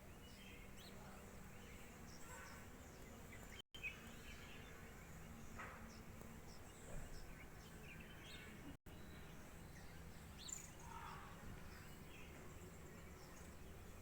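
Faint background ambience with a low steady hum and scattered short, faint chirps, like distant birds. The sound cuts out completely twice for a split second.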